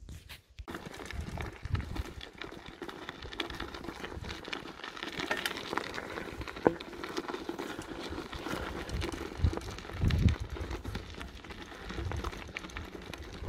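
Footsteps crunching on a gravel road at a steady walking pace, with a few low thumps.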